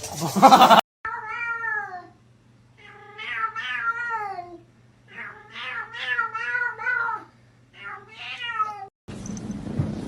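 Domestic cat meowing: four long, drawn-out meows that bend and fall in pitch. It begins after a loud, brief burst at the very start and gives way to a steady noise near the end.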